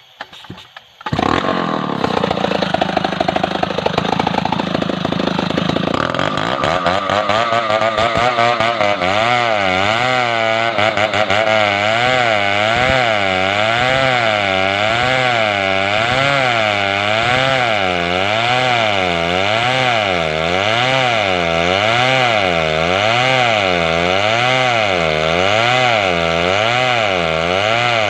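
Large two-stroke chainsaw cutting lengthwise through a big hardwood log, starting suddenly about a second in. Its engine pitch rises and falls evenly about once every 1.3 seconds as it works under load in the cut.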